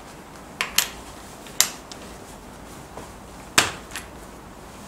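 A ratchet wrench and hand tools clinking against the steel dies of a small power hammer while the top die is being fitted: a handful of sharp metallic clicks, unevenly spaced, the loudest a heavier knock about three and a half seconds in. The hammer itself is not running.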